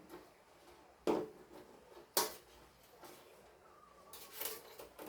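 Hard parts being handled and set down during reassembly after a power-supply replacement: a sharp knock about a second in, another about two seconds in, then a run of lighter clatters near the end.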